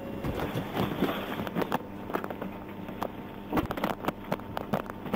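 Irregular clicks, knocks and rustles from a police officer moving about beside a patrol SUV and handling his K-9 dog, over a faint steady hum.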